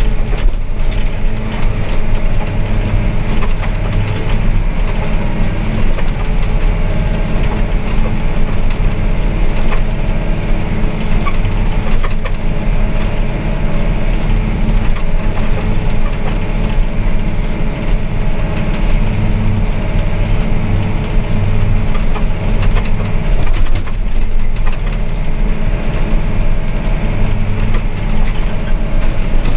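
John Deere 410R self-propelled sprayer running steadily across a field: a continuous engine drone under loud, rough, crackling rumble.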